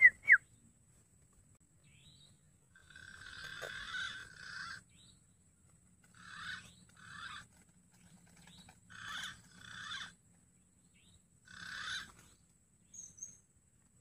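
Green pigeons (punai) calling: short calls, mostly in pairs, repeating every two to three seconds, after a few loud sharp chirps right at the start.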